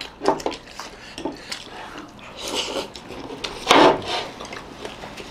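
Chopsticks clicking and scraping against ceramic plates and soup bowls while momos are picked up and dipped, with one brief louder sound a little before four seconds in.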